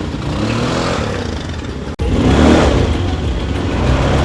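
ATV engine running, then revving louder after a sudden break about halfway.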